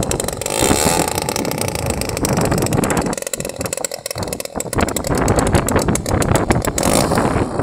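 50cc gasoline engine of a large RC model plane running, with its loudness rising and falling unevenly.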